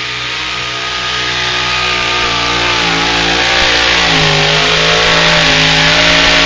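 Pulling tractor's engine at full throttle, hauling the weight-transfer sled down the track, growing louder as it nears.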